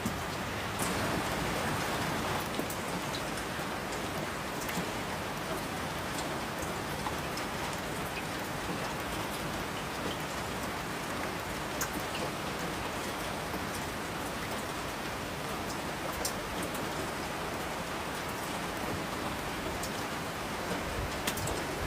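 Steady rain falling, a constant hiss with scattered individual drops ticking on a surface.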